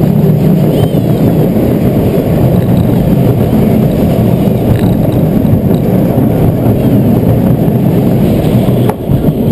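Small steel family roller coaster's train rolling over its track: a loud, steady rumble of wheels on the rails. One sharp click near the end as the train runs into the station.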